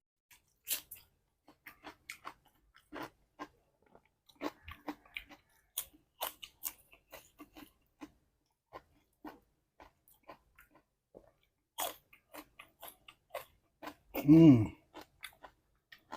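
Close-up chewing of food, heard as a long string of short, irregular mouth clicks and smacks, as in a beef mukbang. About 14 seconds in there is a brief voiced sound, like a hum of approval.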